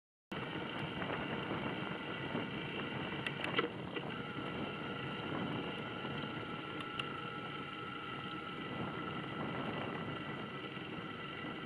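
Bicycle riding along a tarmac path, heard through a bike-mounted camera: steady tyre and wind noise with a few faint steady tones, and a few sharp clicks about three and a half seconds in and again near seven seconds.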